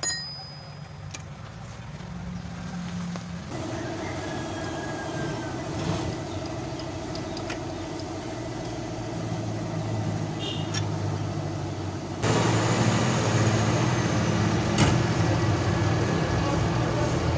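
A motor vehicle engine idling steadily, with a few short clicks over it. It gets suddenly louder about twelve seconds in.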